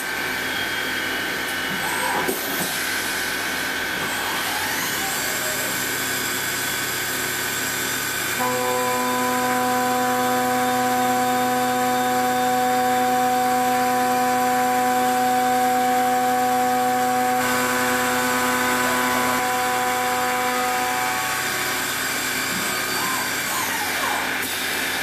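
CNC milling machine cutting an aluminium block for a PC case body, the spindle running and the end mill milling the first stage, heard through the machine's closed enclosure. A high whine climbs about five seconds in and then holds, and several steady tones from the cut come in about eight seconds in and fade out around twenty seconds.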